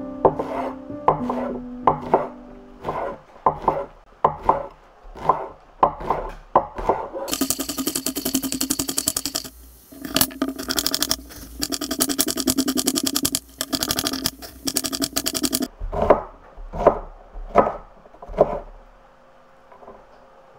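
Zucchini grated on a hand grater. Rasping strokes come about two or three a second, then a long run of fast grating from about seven seconds in to about fifteen, then a few slower strokes. Soft background music plays underneath.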